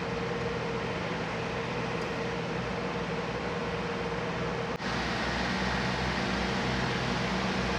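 Steady droning hiss of machinery with a faint held hum. The sound shifts slightly at a cut about five seconds in.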